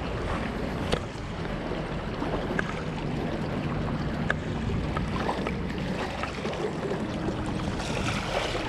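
Fast-moving, shallow trout stream rushing over rocks in a steady wash of water noise, with a few faint clicks.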